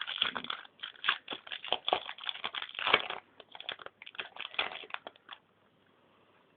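Foil wrapper of a Yu-Gi-Oh! trading-card booster pack crinkling and crackling in a rapid, irregular run as hands work the stubborn pack open; it stops about five seconds in.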